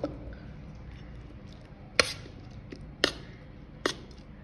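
A steel spoon knocking against a steel plate while mixing rice with rajma curry: three sharp clinks, about a second apart.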